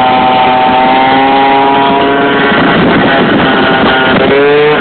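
Two-stroke scooter engine, a 70cc Stage6 Sport Pro big-bore cylinder breathing through a Yasuni C16 expansion exhaust, running hard under way. Its pitch holds steady, turns rougher for a moment a little past halfway, then rises near the end as the revs climb.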